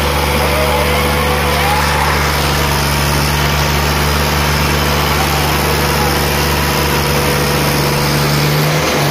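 Diesel tractor engine running steadily at a constant pitch, loud and close, with a brief change in pitch near the end.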